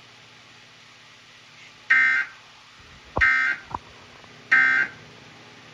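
Emergency Alert System end-of-message data bursts: three short two-tone digital warbling bursts about 1.3 seconds apart, the code that closes the alert. Two quick falling chirps come just after the second burst.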